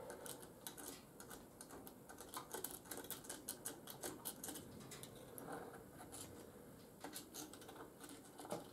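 Faint, quick clicks and light taps of small metal parts and tools being handled, in irregular runs, as a hydraulic barber-chair pump is taken apart by hand.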